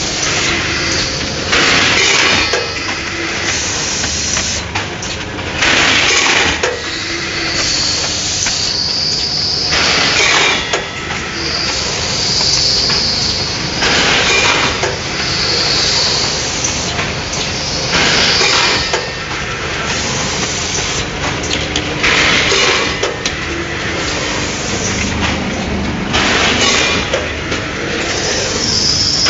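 Rotary premade-pouch filling and sealing machine running: a steady mechanical clatter, with a burst of hissing air from its pneumatics about every four seconds.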